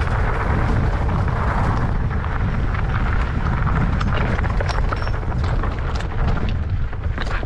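Wind buffeting the microphone of a camera riding on a mountain bike at speed, with tyre noise on the dirt trail and sharp clicks and rattles from the bike that become more frequent in the second half.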